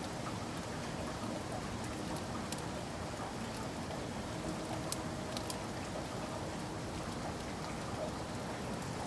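Steady urban rain falling with a constant hiss and scattered sharp drips, two louder drops about five seconds in.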